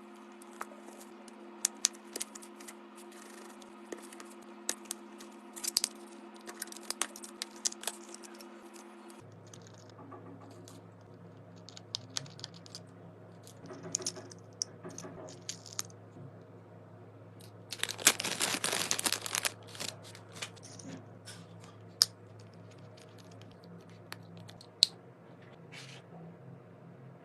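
Small repair tools clicking, tapping and scraping on an AirPods Pro charging case during a charging-port repair, over a steady electrical hum that drops in pitch about nine seconds in. A louder noisy burst lasts about a second and a half near eighteen seconds in.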